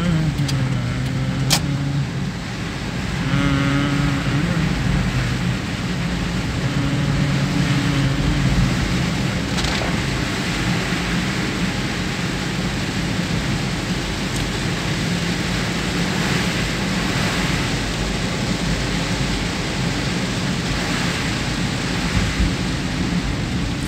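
Inside a car driving through heavy rain: a steady wash of rain and wet-road tyre noise, with the engine running low underneath. One sharp click about a second and a half in.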